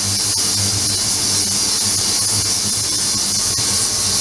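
Ultrasonic cleaning tank running, its agitated cleaning liquid giving a loud, steady high hiss over a low hum.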